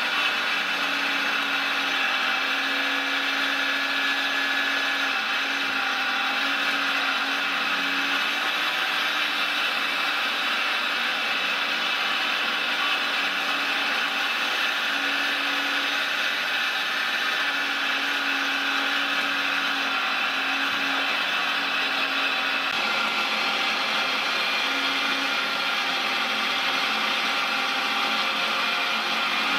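Radio-controlled Liebherr 956 model excavator running, a steady whine of its electric motors and pump with a low hum underneath.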